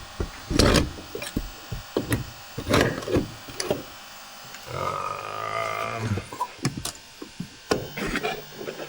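Hand tools clicking and knocking on the transmission's shifter bolts, with a small power tool whirring for about a second and a half near the middle.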